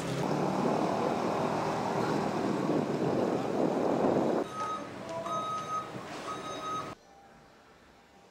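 Loud, even street noise with a vehicle running, then a few short high tones at different pitches, cut off abruptly about seven seconds in.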